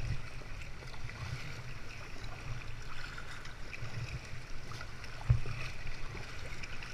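Kayak paddling on the sea: water splashing and dripping from the paddle over a steady low rumble, with one louder low thump about five seconds in.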